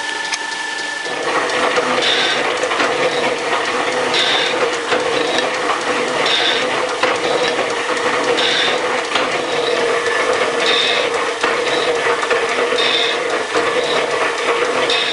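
Metal shaper running on a planing cut across a lathe tailstock base, its ram stroking back and forth about once every two seconds. A sharper scrape or click repeats with each stroke over the steady clatter of the drive, and the machine gets louder about a second in.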